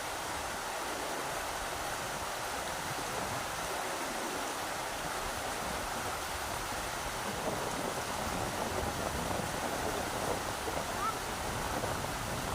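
Rushing river water, a steady rush, with wind gusting on the microphone and growing stronger in the second half.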